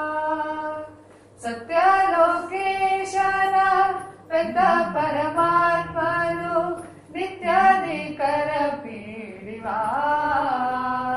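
A solo high voice singing a Kannada devotional song in Carnatic style, in phrases of long held and wavering notes with short breaks between them.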